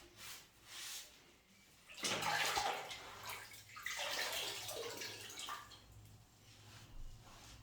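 Water splashing and a wet cloth wiping across a floor in a few bursts, the loudest about two and four seconds in, as white cement is washed off around a toilet base.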